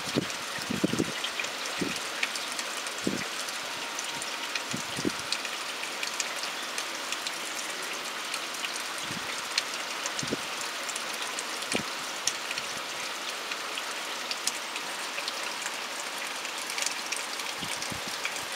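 Steady rain falling, with scattered louder drops tapping close by and a few dull drips in the first few seconds.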